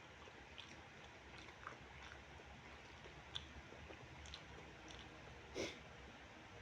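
Faint chewing of a mouthful of fried rice with chicken gizzard and liver, with scattered small mouth clicks and one brief louder sound about five and a half seconds in.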